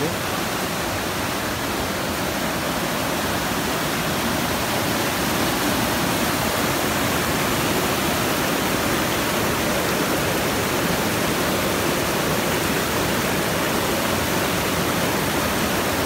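Whitewater mountain stream rushing over rocks: a steady, even noise that gets a little louder about five seconds in.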